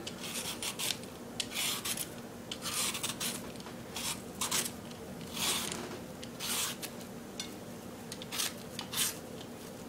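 Vegetable peeler scraping strips of peel off a raw green banana: a series of short rasping strokes, about one a second, uneven in spacing and strength.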